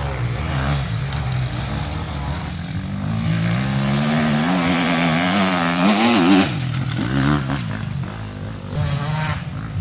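Enduro motorcycle engine revving hard as a rider approaches on the dirt track, the pitch and loudness climbing to a peak about six seconds in and then falling away as it passes. A lower engine note runs underneath, and a short rush of noise comes near the end.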